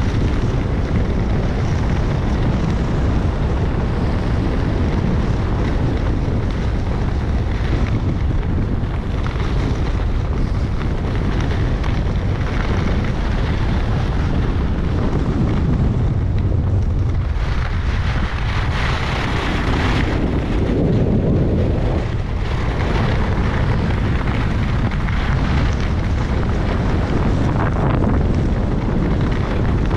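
Wind buffeting the microphone in a steady, heavy low rumble, swelling and easing in gusts.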